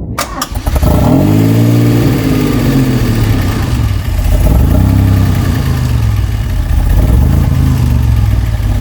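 DeLorean DMC-12's freshly swapped engine starting, flaring up and settling, then blipped a couple of times before idling. The engine is running rich, which the gas tester shows soon after.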